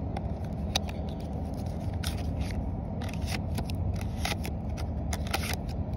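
Scattered crisp rustles, scrapes and clicks of things being handled close to the microphone, over a steady low rumble.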